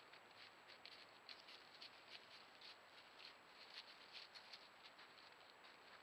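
Faint, irregular crunching and rustling of dry leaves under a white-tailed deer as it forages and walks off, several soft crackles a second, over the trail camera's steady hiss.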